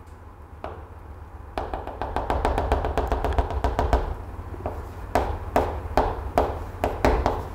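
A quick run of sharp taps and clicks, then slower single taps: a pen or chalk tapping and scratching on a board as a graph is drawn, over a steady low hum.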